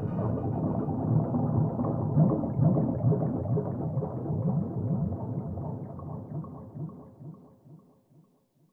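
Low, muffled bubbling water sound effect fading out slowly to nothing over about eight seconds.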